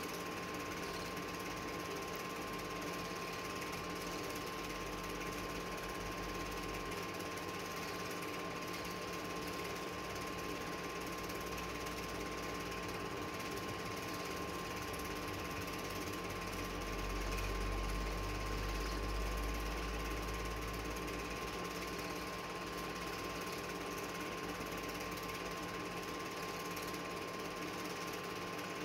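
Film projector running: a steady mechanical whirr and clatter with a constant hum. A low rumble swells briefly about two-thirds of the way through.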